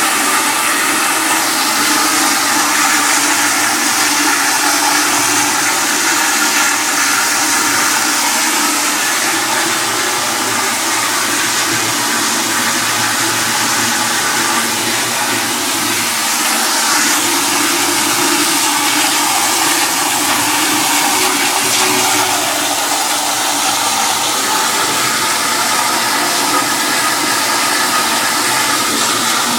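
Toilet flushing continuously, a steady loud rush of water that never shuts off: an infinitely flushing toilet.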